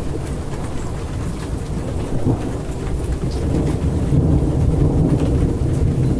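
A rainstorm: steady rain falling, with a low, continuous rumble of thunder that swells about four seconds in.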